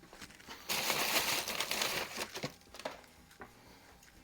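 Rustling and crinkling of things being rummaged through and handled for about a second, followed by a few light clicks and knocks.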